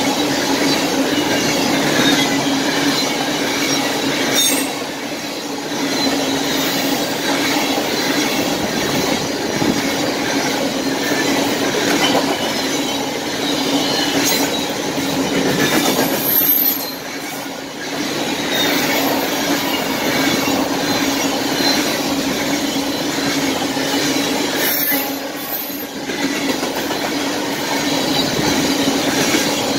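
Coal train's open-top freight cars rolling past at close range: a continuous rumble of wheels on rail with a steady hum-like tone. Brief high wheel squeals come three times.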